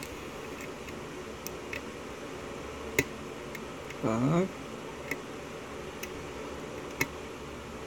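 Single-pin picking of a Dorma six-pin lock cylinder: the pick and tension wrench working the pins give scattered small metallic ticks, the sharpest about three seconds in. A little past four seconds there is a short voiced 'hmm' that rises in pitch.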